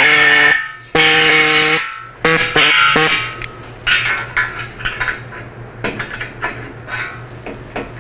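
Air-powered hacksaw with a metal-cutting blade cutting steel, running in a few short bursts with a steady buzzing tone and stopping about three seconds in. Light metal clicks and taps follow.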